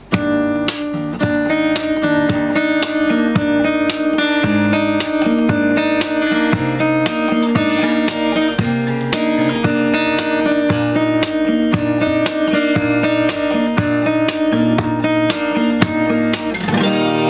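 Acoustic guitar, an Overdrive F-41C 41-inch cutaway steel-string, played unplugged in a percussive fingerstyle. Picked melody notes ring over a moving bass line, punctuated by sharp taps and slaps in a steady rhythm.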